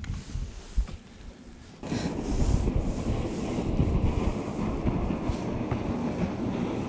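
Wind buffeting the microphone: a low rumble that suddenly grows to a loud, steady roar about two seconds in.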